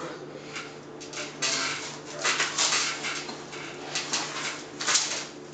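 A man's forceful, hissing breaths, a burst every second or so, from the effort of hanging upside-down crunches, over a steady low hum.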